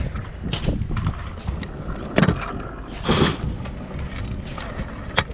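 Stunt scooter's small hard wheels rolling on rough asphalt, with repeated sharp clacks of the deck and wheels striking the ground as the rider tries flatground tricks. The loudest clack comes a little past two seconds in.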